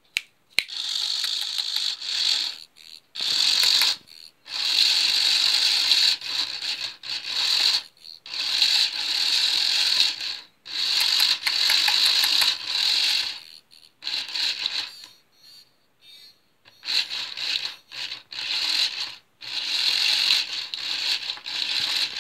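Small electric motor and plastic gearbox of a Robo Nagi Furby-clone toy with its casing off, whirring and rattling in stop-start runs of about one to three seconds as it drives the eyes and ears.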